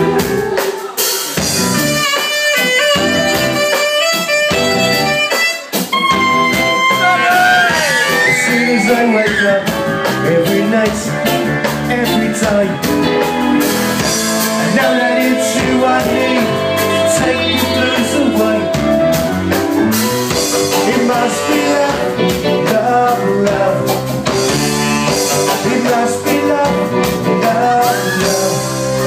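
Live band with drums, electric guitar and saxophone playing an instrumental break: short stabbed chords for about the first six seconds, then a lead melody with bending notes over the full band.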